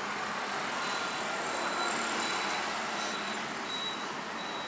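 Steady street traffic noise, an even wash of road sound with faint whining tones over it.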